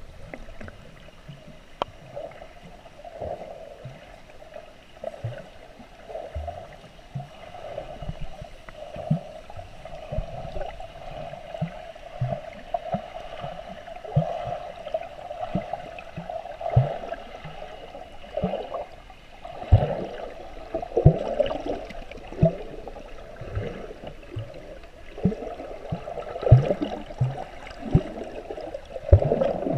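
Water heard with the camera underwater: a steady muffled wash with irregular gurgles, bubbles and soft knocks, which come more often in the last third.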